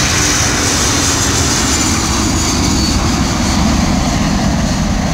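Jet engines of an Airbus A340 airliner at takeoff thrust as it lifts off and climbs away: a loud, steady roar, its high hiss fading over the first couple of seconds while the deep rumble carries on.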